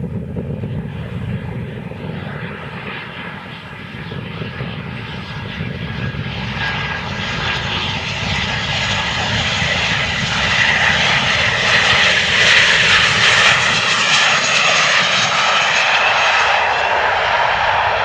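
Boeing 737-800's CFM56-7B turbofan engines on final approach: a jet whine and rush that grows steadily louder as the airliner passes close, loudest about two-thirds of the way through, then falling off near the end as it reaches the runway.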